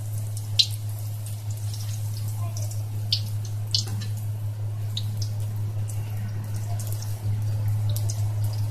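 Bread slices deep-frying in hot oil in an iron kadhai: scattered sharp crackles and pops of spitting oil over a steady low hum.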